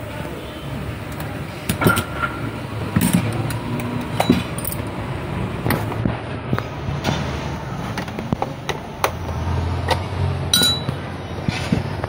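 Irregular light clicks and clinks as a rotary switch's threaded shaft and small metal parts are handled and fitted into a tower fan's plastic top cover. A low steady rumble runs underneath.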